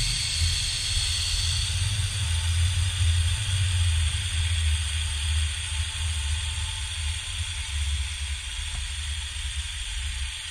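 Wind buffeting the microphone of a selfie-stick camera riding a zipline: an uneven low rumble with a steady rushing hiss over it, gradually getting quieter.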